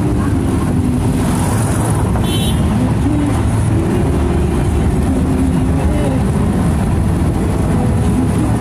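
Steady engine and road rumble heard from on board a vehicle driving along a road.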